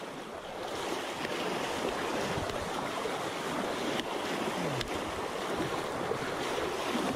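Swollen, fast-flowing creek floodwater rushing past a wader's legs and trekking pole: a steady, even wash with a few faint clicks.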